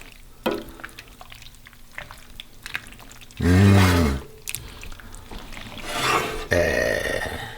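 Penne being stirred and tossed in a pan of creamy tomato vodka sauce: soft wet squishing with small clicks of the utensil, and a longer scraping stretch near the end. A brief hummed voice sound about halfway through.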